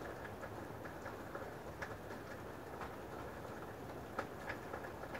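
Faint steady hiss with scattered soft clicks and taps at irregular intervals, the sharpest about four seconds in.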